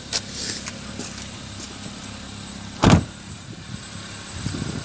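A car door shutting with a single heavy thump about three seconds in, over the steady low hum of the 2014 Kia Forte idling and light handling rustle.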